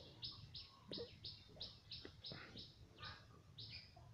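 Faint bird chirping: a short, high call repeated about three times a second.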